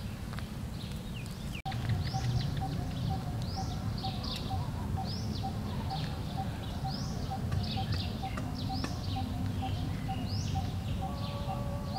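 Birds calling in the forest: short downward-sweeping calls repeated about once a second, over a steady run of short pips two or three a second and a low background rumble. The sound cuts out for a moment about a second and a half in.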